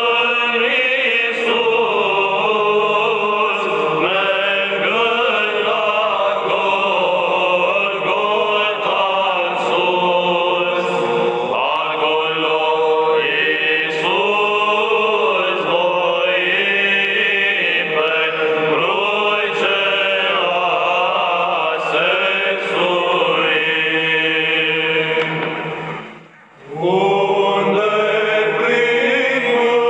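Orthodox church chant: voices singing the Romanian hymn to the Holy Cross, with a short break for breath near the end.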